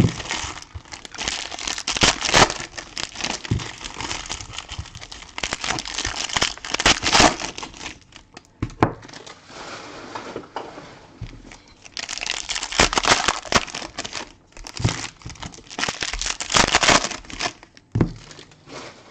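Plastic trading-card pack wrappers crinkling and tearing as the packs are opened by hand, in irregular bursts of rustling with sharp crackles.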